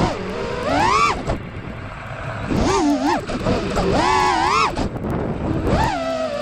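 GepRC Mark2 FPV freestyle quadcopter's brushless motors and propellers whining, the pitch sweeping up and falling back several times as the throttle is punched and eased.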